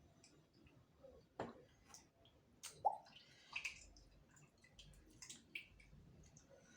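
Faint wet mouth sounds from a person eating and drinking up close to the microphone: scattered small clicks and a few short slurping, swallowing noises.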